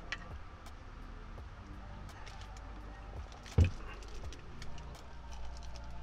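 Handling noises: scattered small clicks and rattles and one heavy thump about three and a half seconds in, over a low steady hum.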